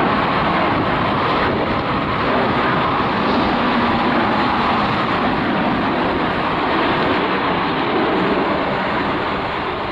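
Boeing 737-800's CFM56-7B turbofan engines at climb-out thrust just after takeoff: a loud, steady jet noise.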